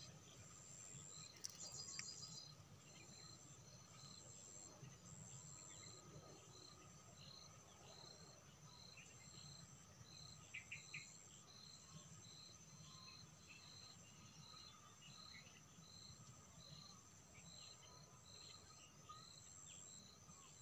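Faint insects chirping in a steady, even rhythm of about two pulses a second, with a higher trill pulsing alongside.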